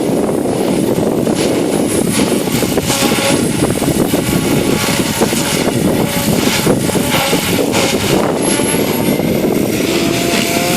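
ALZRC Devil 505 electric RC helicopter flying in strong wind: heavy wind buffeting on the microphone, with a thin motor and rotor whine that rises in pitch near the end.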